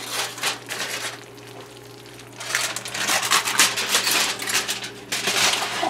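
Aluminium foil crinkling and rustling as it is peeled back off a hot glass baking dish, in two spells of crackly rustling with a short lull between, over a faint steady low hum.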